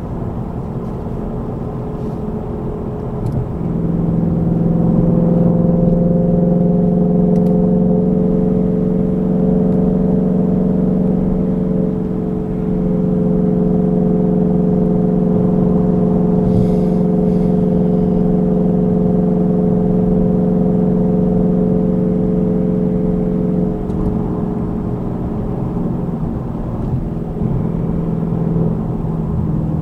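Car engine and tyre noise heard from inside the cabin at highway speed. About four seconds in the engine rises into a louder, steady note at a constant pitch. It holds there, with a brief dip about twelve seconds in, and eases back about twenty-four seconds in.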